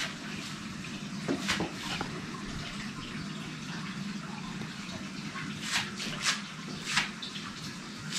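Light clinks and knocks of ceramic bowls and a spatula being handled on a kitchen counter, a few around a second or two in and more near the end. Under them runs a steady background hiss and low hum.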